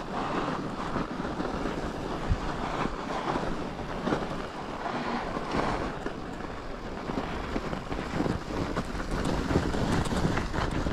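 Wind buffeting the microphone as a mountain bike rolls over snow and ice, with scattered small knocks.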